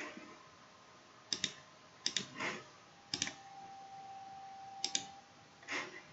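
Computer mouse clicks, four times, each a quick double tick of press and release, over a quiet background.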